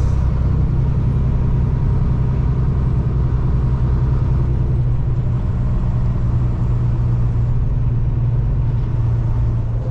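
Semi truck's diesel engine running with a steady low drone and road noise.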